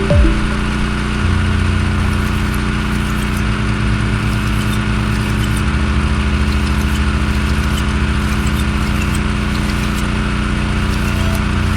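Pressure washer engine running steadily at a constant pitch. Its low hum shifts in level a few times as the load changes.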